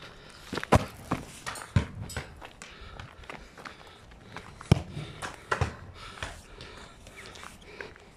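Small football being kicked and tapped along asphalt, with footsteps. There are several sharp thuds, the loudest about a second in, near two seconds and near five seconds, among lighter scuffs and taps.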